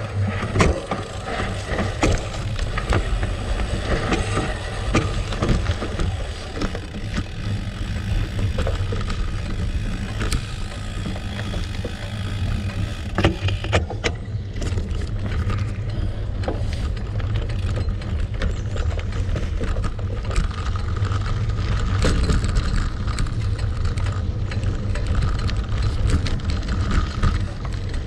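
Gravel bike rolling along a gravel track: steady tyre noise and crunching over a deep rumble, with scattered clicks and rattles.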